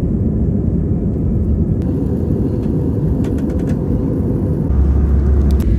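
Jet airliner cabin noise by a window seat: a loud, steady low rumble of the engines and rushing air, deepening from about three-quarters of the way in, with a few faint clicks near the middle.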